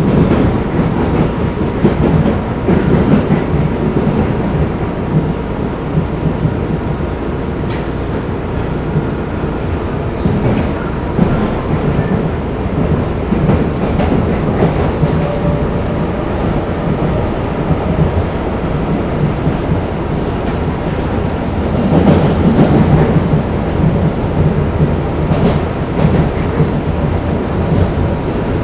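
MBTA Blue Line Type 4 subway car running between stations, heard from inside the car: a steady rumble of wheels on rail with scattered clicks over rail joints, growing louder for a couple of seconds about three quarters of the way through.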